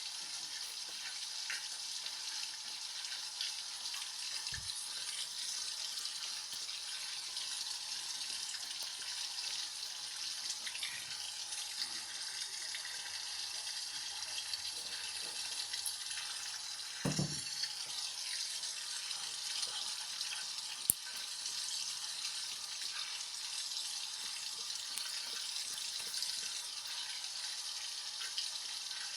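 LG washing machine early in a heavy-load cycle, water running steadily into the drum with a continuous hiss. A brief low thump comes a little past halfway, and a single sharp click follows a few seconds later.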